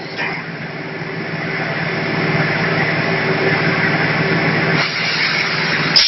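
Automatic vacuum forming machine for PS foam ceiling tiles running: a steady rushing noise over a low hum, growing louder about a second in, with one sharp click near the end as a foam sheet moves onto the frame table.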